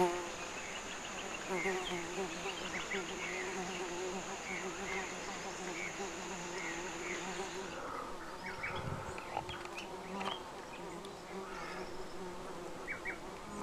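Rainforest insects buzzing and droning, with a steady high-pitched insect whine that cuts off a little over halfway through and short high chirps scattered throughout.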